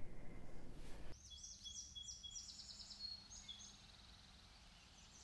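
Faint birdsong: a run of high, arching chirps repeated in quick succession, starting about a second in and fading out.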